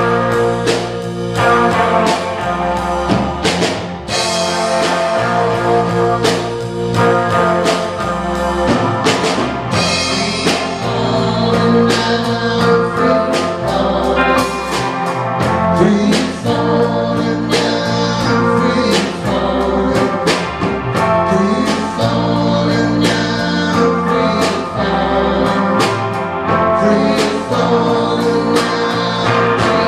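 Live rock band playing: electric guitars, bass line and drum kit, with a man singing lead. Steady drum beat throughout.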